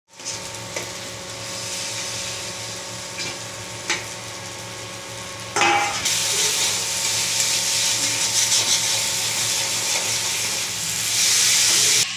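Peas and carrots sizzling in hot oil in an aluminium kadhai while a steel spatula stirs them, with a few sharp clicks of the spatula against the pan. The sizzle grows louder about halfway through and again near the end.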